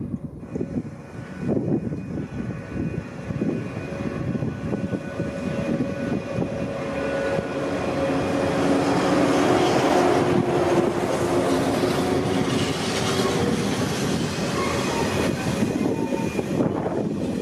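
485-series electric train moving along the platform at low speed, growing louder to a peak about ten seconds in, with steady squealing tones from the running gear. Wind gusts buffet the microphone near the start.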